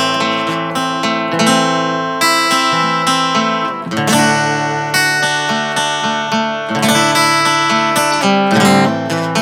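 Thinline acoustic-electric guitar fingerpicked, with chords broken into ringing single notes and a fresh chord about four seconds in.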